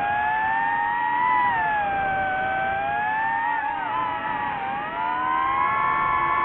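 DJI FPV drone's propeller motors whining, the pitch sliding slowly up and down as the throttle changes, with a dip a little after halfway before it climbs again.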